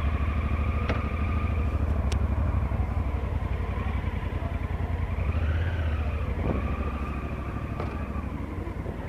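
Honda Africa Twin CRF1000L's parallel-twin engine running as the motorcycle pulls away and rides off at low speed, its note rising and falling briefly about halfway through.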